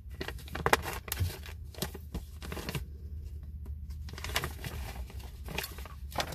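Sheets of paper rustling and crinkling as they are handled, in two irregular spells of crackles and sharp clicks, over a low steady hum.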